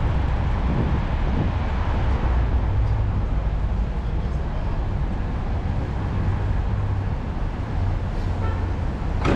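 City street traffic: a steady rumble of passing cars and engines with a wash of road noise. A single sharp click comes just before the end.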